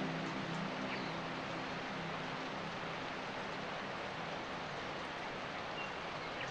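Steady, even hiss of rain, with a few faint short high chirps.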